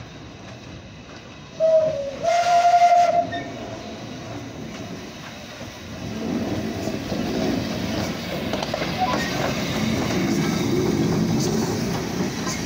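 Steam whistle of LMS 11456, an ex-Lancashire & Yorkshire Railway saddle-tank steam locomotive, giving a short toot and then a longer blast about two seconds in. The locomotive's running sound, wheels on the rails and its working, then swells as it draws close and holds steady.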